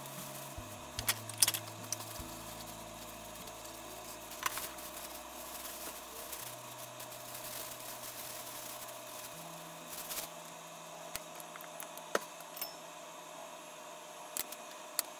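Plastic bag crinkling and scattered light clicks and knocks as pounded lotus root pieces are handled in a plastic bag and tipped into a container.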